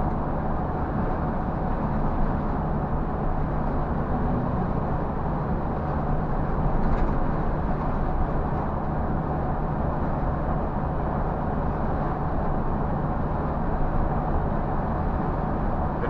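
Scania bus's diesel engine running steadily at highway cruising speed, a low even hum mixed with tyre and road noise, heard from inside the driver's cab.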